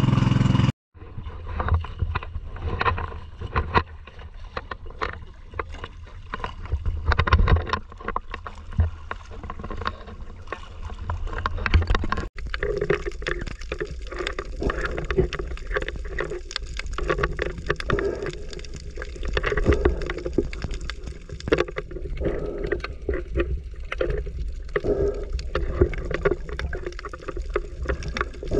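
Water splashing and sloshing around a small wooden fishing boat, with scattered knocks over a low rumble.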